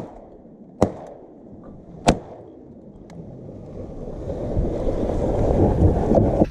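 Two shotgun shots about a second and a quarter apart, closing a volley at passing ducks, followed by a rush of noise that grows louder over the last few seconds.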